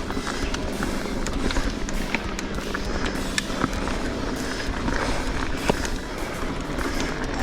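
Mountain bike riding fast down a rocky downhill trail: tyres rolling over dirt and rock, with frequent sharp clatters and knocks from the bike over the rough ground, and wind rushing on the microphone.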